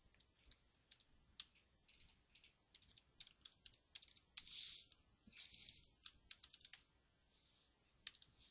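Faint typing on a computer keyboard: quick, irregular keystroke clicks as code is entered, with a brief pause near the end.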